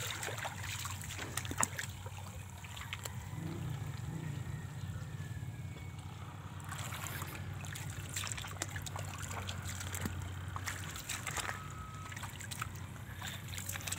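Water trickling and lapping, under a steady low hum, with scattered small clicks.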